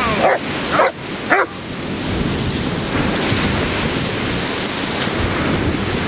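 A dog barks three times in quick succession, then waves break on the shore with wind buffeting the microphone.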